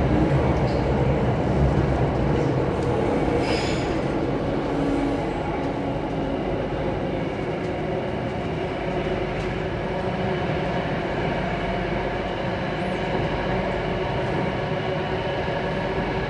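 Alstom Metropolis C830C metro train running, heard from inside the car by the doors: a steady rumble with several steady whining tones over it. A brief high-pitched squeal comes about three and a half seconds in, and the sound eases slightly just after.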